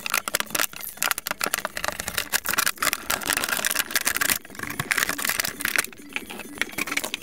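Clear plastic bottle crinkling and crackling in a dense, irregular run as it is squeezed, handled and cut with a knife blade.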